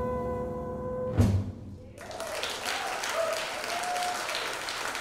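A jazz quintet of trombone, saxophone, piano, upright bass and drums holds its final chord and cuts it off with a short accented hit about a second in. Audience applause follows from about two seconds in, with a few voices calling out.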